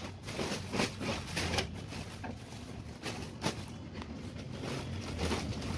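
Irregular clicks, taps and scrapes of a screwdriver working at the plastic louvres and front panel of a Blue Star split AC indoor unit, over a steady low hum.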